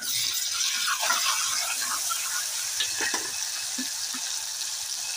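Ginger-garlic paste sizzling in hot oil with sliced onions in an aluminium pressure cooker, a steady frying hiss that jumps up as the paste is stirred in. A spatula stirs and scrapes against the pot a few times.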